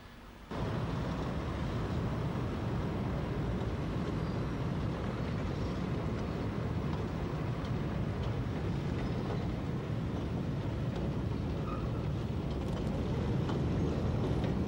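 Narrow-gauge diesel locomotive of a peat bog railway running, a steady engine noise that cuts in about half a second in and grows slightly louder near the end.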